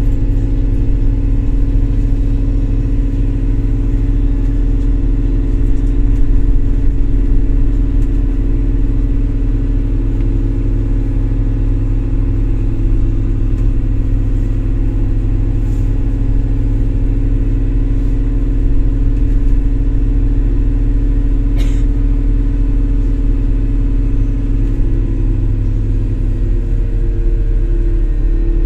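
Steady engine drone and low rumble heard inside a MAZ-203 city bus under way. There is a single short click about three-quarters of the way through, and the engine tone dips slightly near the end.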